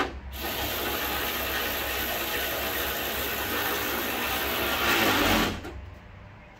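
Small power tool running for about five seconds as it tightens a bolt on a new Lincoln Town Car front grille. It gets louder just before it stops.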